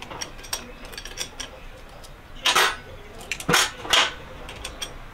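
Metal clicks and clinks of hand tools and loose parts on a 150 cc motorcycle engine being taken apart, with three louder rattling scrapes in the second half.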